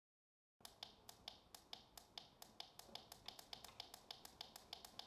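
Rapid, evenly spaced button clicks, about five a second, starting about half a second in, as the + button on top of a Dekala SunStone sunrise alarm clock is pressed to step the alarm minutes up.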